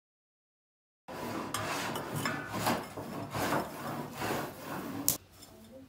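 A run of rough scraping strokes of steel rubbing on rusty steel, starting about a second in and ending with a sharp click.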